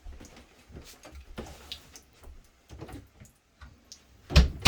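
Clean-up handling at a workbench: scattered light clicks, knocks and rustles as things are picked up and set down, with one louder knock near the end.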